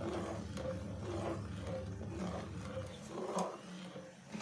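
Metal spoon stirring a thick brown syrup in a steel pot, scraping the pot in a rhythm of about two strokes a second over a steady low rumble.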